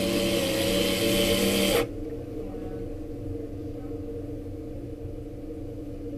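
A small machine runs with a hiss and a steady hum for about two seconds, then cuts off suddenly, leaving a low background hum.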